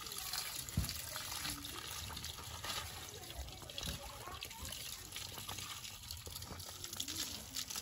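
Water from a garden hose splashing and trickling over a wet dog's head and onto gravel as the dog is rinsed, with a brief thump about a second in.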